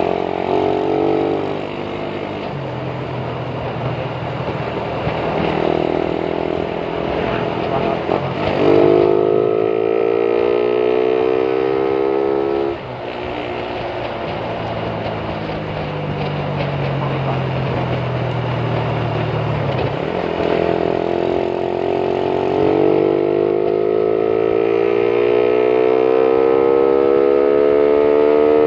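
Suzuki Raider 150's single-cylinder four-stroke engine, heard from the rider's seat, accelerating under throttle. Its pitch climbs, drops sharply about thirteen seconds in as the rider shifts up, and climbs again through the last several seconds, over steady wind rush.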